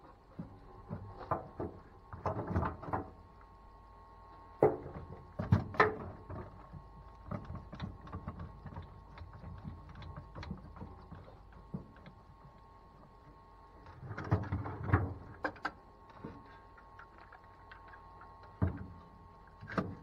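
Irregular clicks, knocks and rattles of one-handed bar clamps being set and squeezed onto wooden strips laid along a PVC pipe. They come in short clusters, a few seconds apart.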